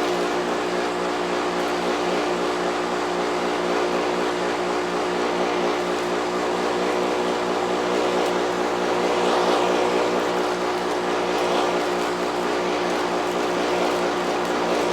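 Hoover vacuum cleaner running steadily with a motor hum and the rush of suction air while it picks up a sand and food mess, with a few louder patches of noise about two thirds of the way through.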